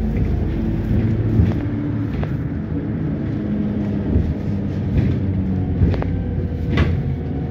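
Inside a NefAZ-5299 city bus under way: a steady engine and drivetrain hum with road noise, broken by a few sharp rattles or knocks from the bus body, the loudest near the end.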